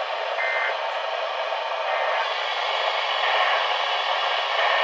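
Steady hiss of static from a NOAA weather radio receiver's speaker, with a brief faint tone about half a second in.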